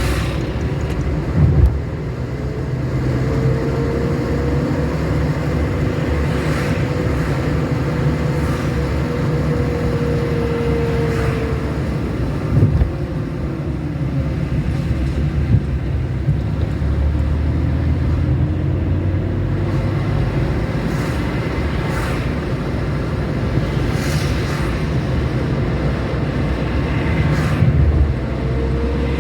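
A car driving along a road: steady engine and tyre noise, with a few brief thumps.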